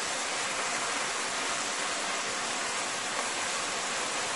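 Sausage, onions and sweet peppers sizzling steadily in oil in a saucepan, with washed rice just tipped in on top.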